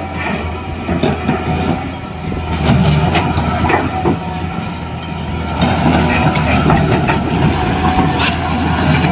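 Toy RC excavator's small electric motors and plastic gears whirring steadily, with scattered clicks and rattles as it works.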